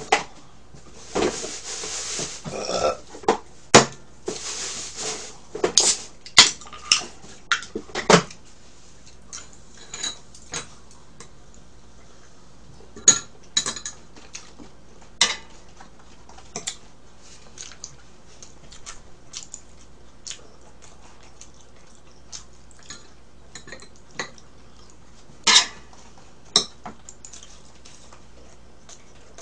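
Chopsticks clicking and clinking against bowls and a tabletop griddle while food is picked up and eaten: scattered sharp clicks, busiest in the first eight seconds and again near the end, with two brief stretches of hiss near the start.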